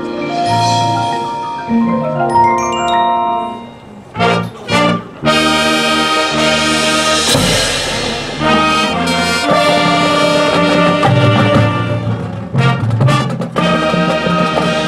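Marching band playing its show. For the first few seconds marimbas and other mallet percussion carry the music. After two short loud hits, the full band with brass comes in about five seconds in and plays on.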